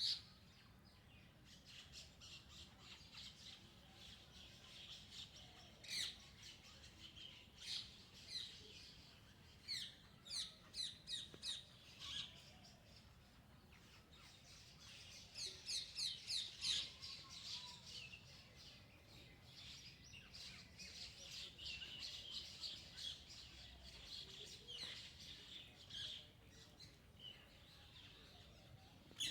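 Several wild birds chirping and calling, with two runs of quick repeated notes, one about ten seconds in and another a few seconds later, over a fainter background chorus of birdsong.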